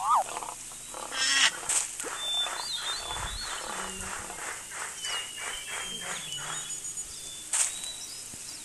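A mix of animal calls: short bird-like whistles that rise and fall, a quick rattling call about a second and a half in, and then a run of repeated calls at about three a second through the middle, with a low rumble where they begin.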